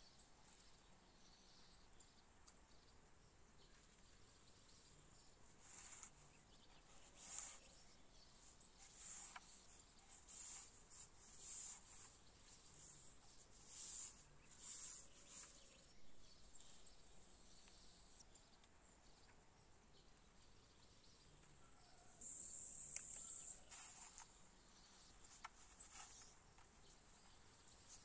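Faint outdoor ambience with a steady, high insect chirring. A run of short high chirps or calls comes in the middle, and a louder high buzz lasts about two seconds late on.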